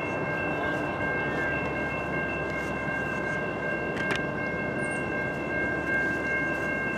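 Norfolk Southern locomotive's multi-chime air horn sounding one long, steady chord, over the low rumble of the train.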